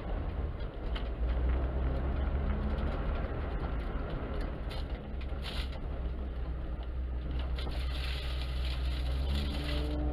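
Opel car driven on packed snow, heard from inside the cabin: a steady low rumble of engine and tyres with crunching snow under the wheels. The engine note rises near the end as it revs up.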